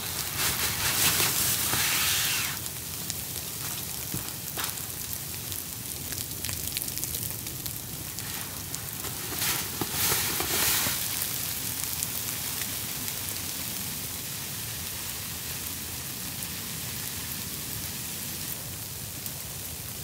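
Sleety snow pattering steadily, a constant hiss full of fine ticks, with two louder swells of hiss: one at the start and one about halfway through.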